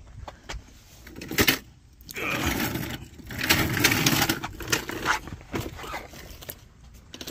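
Rustling, scraping and handling noise as a person gets down onto a concrete driveway to reach under a car, with a couple of sharp knocks about a second and a half in and longer spells of scuffing after that.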